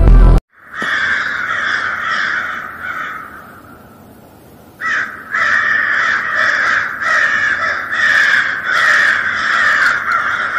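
Crows cawing over and over, dipping for a moment about three seconds in and coming back strongly about five seconds in.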